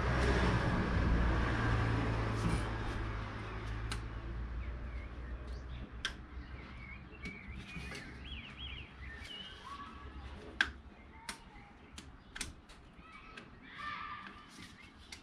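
A vehicle's low engine hum fades out over the first few seconds. Then come scattered sharp clicks and taps of a small screwdriver working at a plastic sensor plug in the engine bay, with birds chirping now and then in the background.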